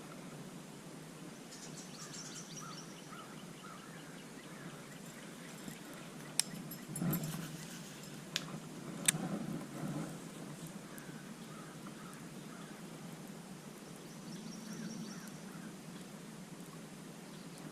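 Faint outdoor ambience with birds chirping twice, in short quick series. Around the middle come a few sharp clicks and soft rustling handling noises.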